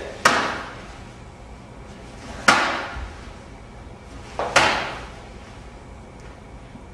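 Three sharp impacts about two seconds apart, each echoing briefly: body contact in a side-kick defence drill, the kick patted aside and a counter-hit landing.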